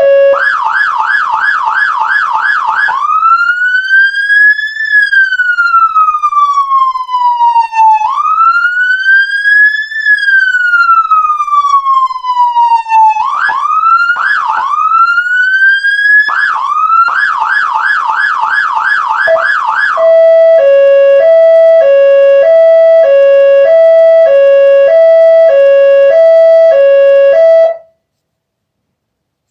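Whelen Alpha 12 electronic siren cycling through its tones: a fast yelp warble, then two slow rising-and-falling wail sweeps, a few short rising whoops, another fast yelp, and from about two-thirds of the way in a steady alternating two-note hi-lo tone. The siren cuts off suddenly near the end.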